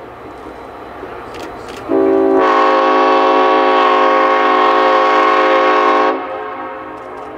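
Multi-chime air horn on the lead diesel locomotive, a Clinchfield F7, sounding one long blast of about four seconds, starting about two seconds in. A lower note sounds first and the full chord joins a moment later; the blast cuts off near the end. The train's running rumble goes on before and after.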